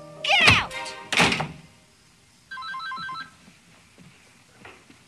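Two loud, sudden sounds sliding steeply down in pitch in the first second and a half, then a telephone rings once with a rapid, trilling electronic ring about two and a half seconds in.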